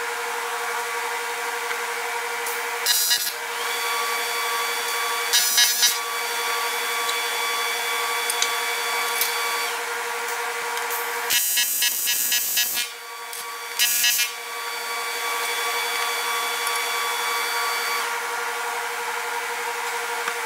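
Steady machine hum with four short bursts of metal scraping and rattling, a few seconds apart and the longest about a second and a half, from a sheet-aluminum part being handled on a steel welding table.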